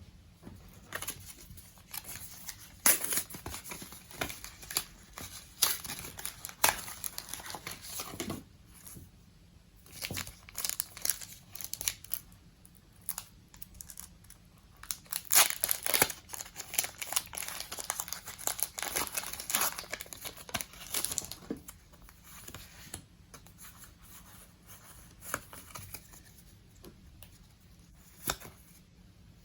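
Pokémon TCG Darkness Ablaze booster pack's foil wrapper being crinkled and torn open, in a string of sharp crackles and rustling bursts that come and go.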